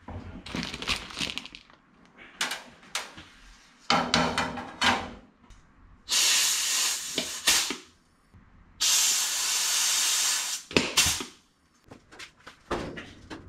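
Compressed air hissing from a pneumatic tool on an air hose in two long bursts, the second a little longer. Light clinks and knocks of aluminium aircraft parts being handled come before and after.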